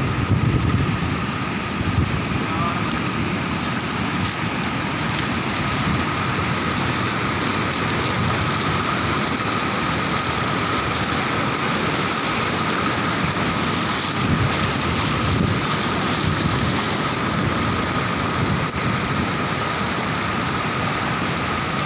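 Brown floodwater rushing across a submerged road and spilling over its edge: a loud, steady rush of flowing water.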